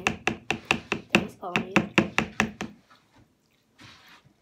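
A knife knocking against the side of a plastic bowl as slime is stirred fast, about five knocks a second. The stirring stops about three seconds in.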